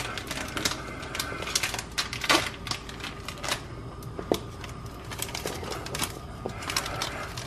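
Irregular clicking and crinkling as a seasoning packet is cut open with a knife and shaken out over a pot of chili.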